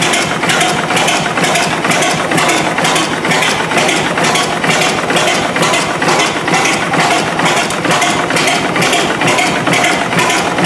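Patent model of a tandem double-acting gas engine, built like a Snow oilfield engine, running steadily with an even, rhythmic mechanical clatter.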